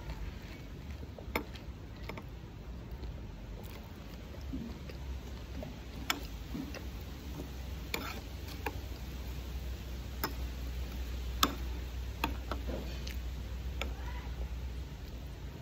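Eating sounds: a metal spoon clicking and scraping in a glass bowl of açaí with tapioca flour, and mouth sounds of chewing. These come as scattered sharp clicks a second or more apart over a low steady hum.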